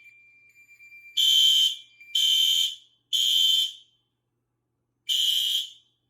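Fire alarm horns sounding the temporal-3 evacuation pattern: three short blasts a second apart, a pause, then one more blast, after which the horns stop near the end. A faint steady high tone under the first blasts stops about two seconds in.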